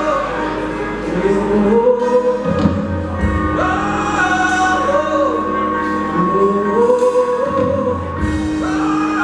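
Live hard rock band, heard from the audience stands: a male lead vocal sings long held and sliding notes over the band.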